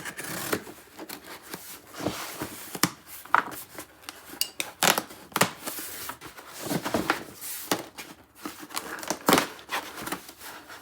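Knife blade, set barely out of the handle, scraping and slicing through a cardboard box in short, irregular scratchy strokes, with the cardboard crackling and rustling as it is handled.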